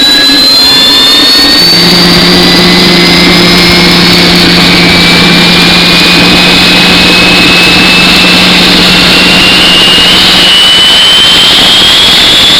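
Garrett GTP70 gas turbine accelerating after light-off, extremely loud: a dense rushing noise with a high whine that climbs slowly and steadily in pitch as it spools up toward full speed. A steady low hum joins about two seconds in.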